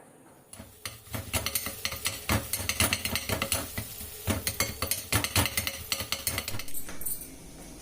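Metal cooking utensils clinking and scraping against a pan, a quick irregular run of knocks and clatter.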